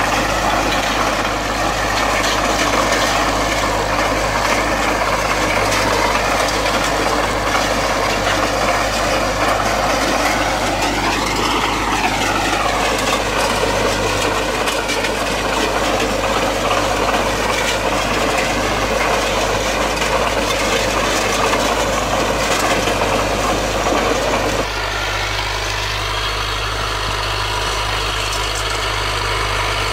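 IMT 577 tractor's diesel engine running under load while it drives a Maschio rotary power harrow through ploughed soil. The pitch briefly rises and falls about twelve seconds in. Near the end the sound drops abruptly to a thinner, slightly quieter note.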